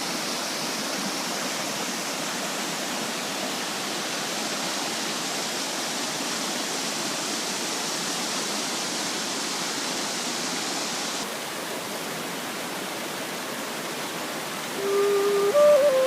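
Waterfall rushing steadily. Near the end a flute comes in over it, holding a low note and then stepping up to higher sustained notes.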